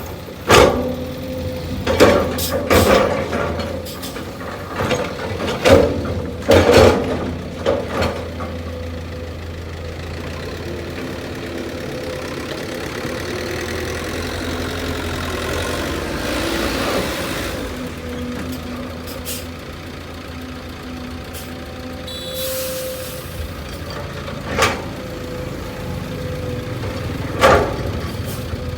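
Heavy diesel engine running steadily, with a string of loud clunks and knocks in the first eight seconds, a hiss a little past the middle and a short sharp hiss soon after.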